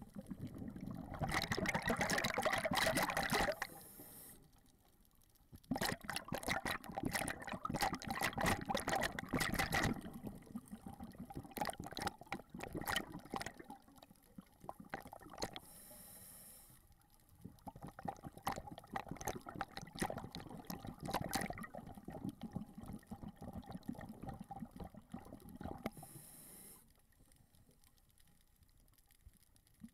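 Scuba diver breathing underwater through a regulator: stretches of crackling exhaust bubbles alternating with short hissing inhalations, three breaths about ten seconds apart.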